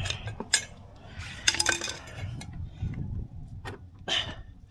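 Metal clinking and scraping as the rear axle of a motorcycle is twisted and pulled out through the wheel hub and spacers, with a couple of sharp clinks about half a second and a second and a half in.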